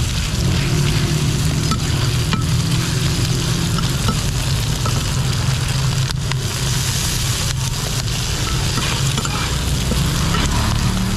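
Bột chiên (rice-flour cake with eggs) sizzling and frying in fat on a wide flat iron pan. A metal spatula scrapes and taps against the pan a few times. A steady low rumble runs underneath.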